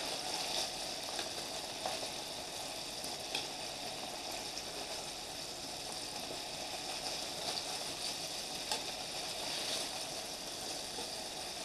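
Whole flour-dredged smelt deep-frying in hot oil in a deep pan: a steady sizzle with a few small crackles scattered through it.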